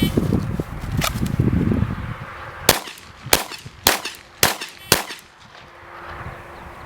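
Glock 17 Gen 2 9mm pistol firing five shots in quick succession, evenly spaced about half a second apart, a timed five-round string. A single sharp click comes about a second in, before the shots.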